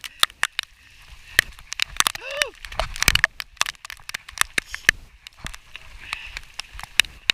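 Raindrops tapping irregularly and sharply on the microphone and rain gear in a thunderstorm downpour, with a short vocal sound about two seconds in.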